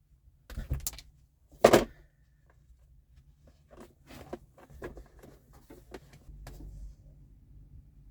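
Knocks and clicks of parts and tools being handled during electrical work in a truck cab: a knock just over half a second in, a louder sharp knock at under two seconds, then a run of small clicks and taps.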